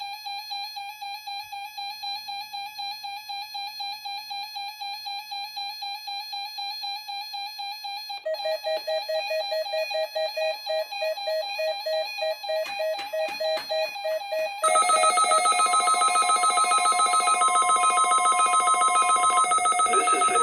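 Electronic public warning alarm test tones from a NOAA Weather Radio broadcast: rapidly pulsing alert tones that get louder in two steps, about eight and fifteen seconds in, as further tones join. A steady higher tone sounds for a few seconds near the end.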